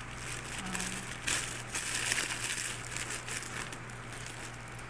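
Tea packaging crinkling and crackling as the packets are handled, busiest from about a second in to about three seconds.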